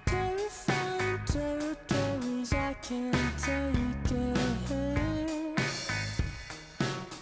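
Background music: an instrumental track with a steady drum beat and a sliding melody line over bass.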